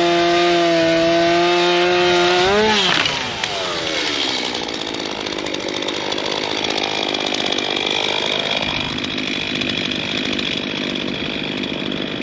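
Two-stroke STIHL chainsaw running at high revs, then the throttle is released a little under three seconds in and the engine note falls away to a quieter, lower running speed for the rest.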